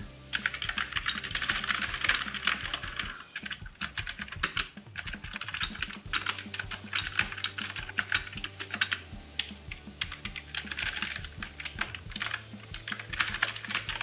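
Typing on an AULA Wind F2058 mechanical keyboard with blue switches: rapid clicky keystrokes in bursts, with short pauses between them.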